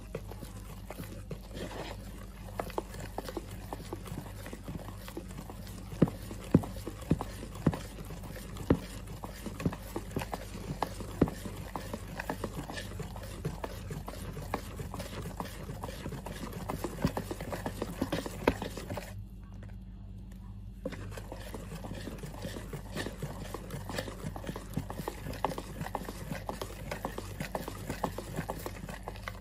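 Wire whisk beating thick cake batter in a plastic bowl, its wires clicking and tapping against the sides in quick irregular strokes, with a short pause about two-thirds of the way through.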